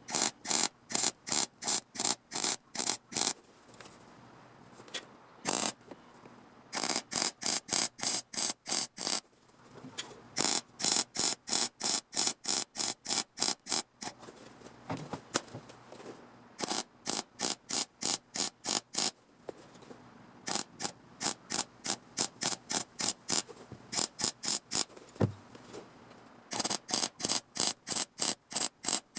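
Welder laying short tack welds on thin car-body sheet steel: crackling pulses about four to five a second, in runs of several seconds with short pauses between runs.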